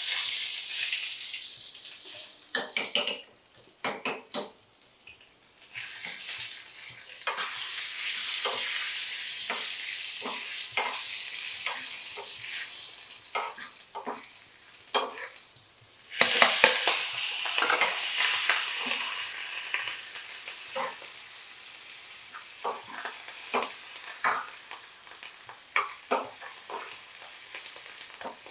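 Tempering spices (garlic cloves, dal, mustard and cumin seeds) sizzling in hot oil in a pan, with a steel ladle stirring and tapping against the pan. A little past halfway the sizzle surges loudly as dried red chillies and curry leaves go in, and mustard seeds crackle toward the end. This is the tadka stage for spinach dal.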